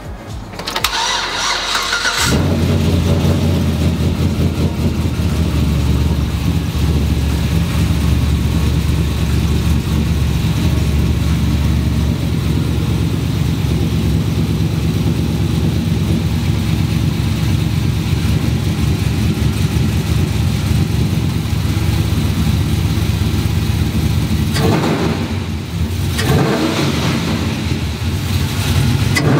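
Pickup truck's V8 engine, fitted with a new cold-air intake, cranked by the starter and catching about two seconds in, then idling steadily. Near the end it is revved briefly twice.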